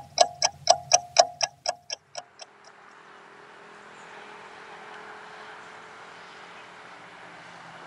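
Clock ticking sound effect, about four ticks a second, fading out about two and a half seconds in. A faint steady hiss follows.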